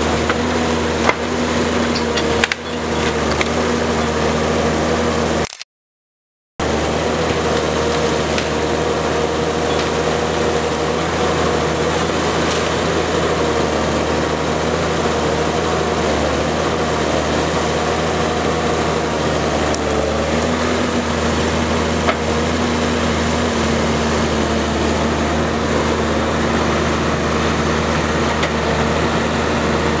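Diesel engine of a NOE forestry tractor running steadily, with a few knocks. The engine note rises slightly about two-thirds of the way through. The sound cuts out completely for about a second near six seconds in.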